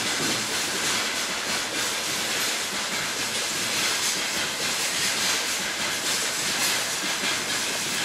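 A train passing on the railway, a steady loud noise of its wheels on the rails.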